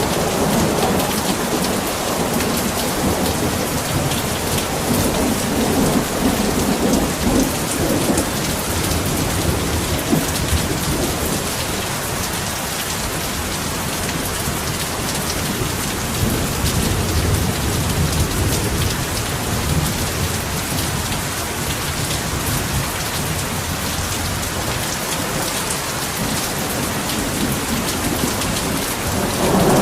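Heavy rain falling steadily, a dense even hiss of rain on surfaces. Low rolling thunder rumbles swell under it a few times.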